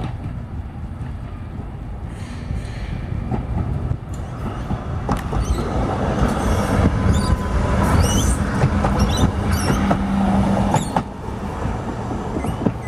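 B2-class tram running past on its track: a low rolling rumble that builds as it approaches, loudest between about six and eleven seconds in as it passes close. At its closest there is a steady motor hum and high wavering wheel squeals, then the sound drops off as it moves away.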